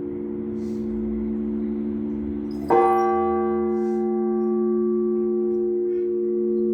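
Orthodox church bells ringing. About two and a half seconds in, a bell is struck once with a sudden clang, and its ring lingers over the steady hum of bells struck earlier.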